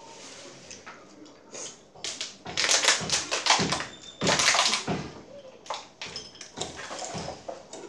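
Crunchy tortilla chips being chewed and rattled in bowls by faces eating without hands, with a loud stretch of crunching between about two and a half and five seconds in and lighter crunches after.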